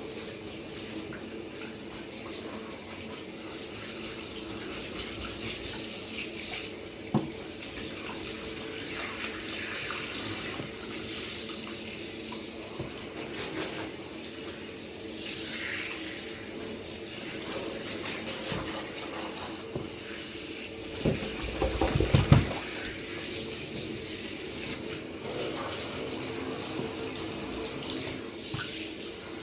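Water running steadily from a tap while a puppy is bathed. A single sharp knock comes about a quarter of the way in, and a quick cluster of knocks about three quarters of the way through is the loudest moment.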